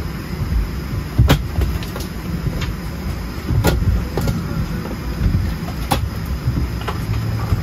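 Steady low rumble inside a vehicle's cabin, with three sharp knocks about a second, three and a half and six seconds in.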